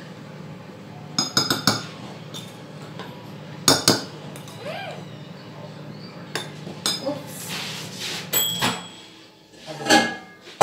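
Kitchenware, dishes and utensils, clinking and knocking as it is handled: a string of separate sharp clinks, a few in quick succession about a second in, then single louder knocks spread through the rest.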